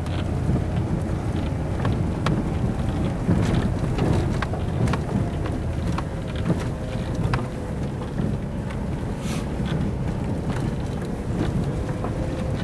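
A vehicle driving on a rough road: a steady low rumble with a faint engine tone and frequent short clicks and knocks of rattling.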